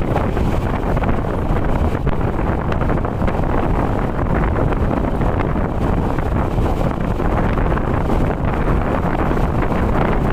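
Steady wind noise buffeting the microphone over the running rumble of a moving Indian Railways passenger train, heard from an open coach door.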